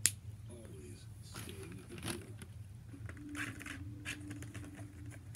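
Quiet handling noises of paper and a roll of washi tape: soft rustles and a few light clicks, with a faint steady hum in the last couple of seconds.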